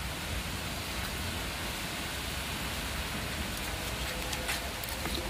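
A steady, even hiss of outdoor background noise, with a few faint clicks near the end.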